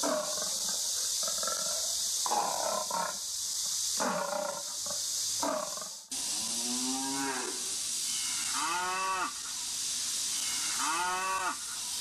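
In the first half, an animatronic lioness model plays recorded big-cat growls through its speaker in about five short, rough bursts. After a cut about halfway in, an animatronic cow model plays recorded moos: three long calls, each rising and falling in pitch. A steady hiss runs under both.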